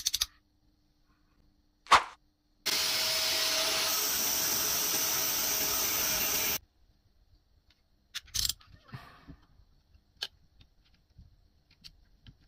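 Angle grinder's thin cutting disc grinding through the steel blade of a snap-off utility knife, a steady loud cut with a faint whine, lasting about four seconds and stopping abruptly. A single sharp click comes just before it, and a few small clicks follow.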